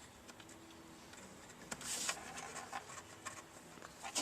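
Faint scraping and a few light clicks, with a short rasp about two seconds in: a screwdriver working the Phillips screws that hold the blower motor in place.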